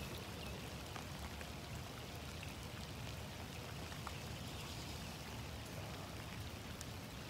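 Steady rain falling, with scattered faint ticks of single drops striking.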